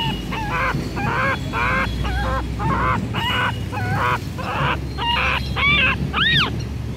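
A run of short honking animal calls, about two a second, with a few higher calls that rise and fall near the end.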